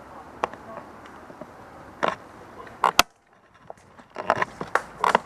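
Scattered sharp clicks and cracks over a low background hiss: a few single ones, then a quick run of them near the end. Just after the loudest crack, about three seconds in, the sound drops almost to nothing for about a second.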